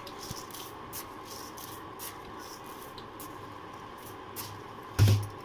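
Milk tea boiling in a steel saucepan: a steady bubbling hiss with scattered small pops, and a single thump near the end.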